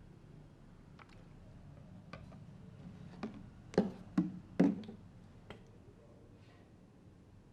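Sharp pops and clicks from a barber's hands during a head massage. Scattered light clicks are joined near the middle by three loud smacks in quick succession, about half a second apart.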